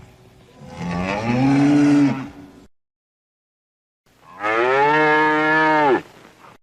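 Two separate cow moos. The first rises in pitch, and after a short gap of silence the second is a steadier, drawn-out moo.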